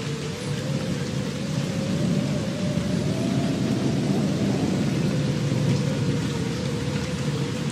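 Ambient soundtrack of steady rumbling noise like rain and distant thunder, with one sustained tone that wavers slowly in pitch and swells a little in the middle.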